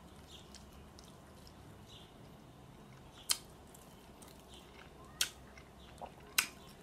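A person chewing a bite of a Beyond Burger in a bun with the mouth close to the microphone, faint and wet, with a few sharp mouth clicks a little over three seconds in, after five seconds and twice near the end.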